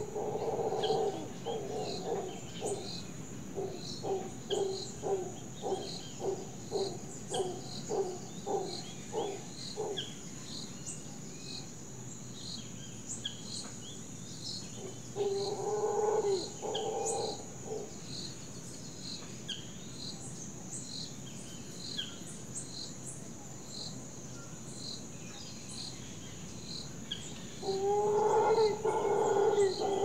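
Rainforest ambience: an animal gives repeated short calls, about two a second for the first ten seconds, then again briefly around the middle and from near the end. Behind them run a steady high insect buzz and regular small chirps.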